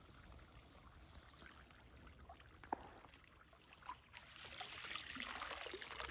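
Faint water trickling and splashing that grows louder in the second half, with a couple of small clicks before it.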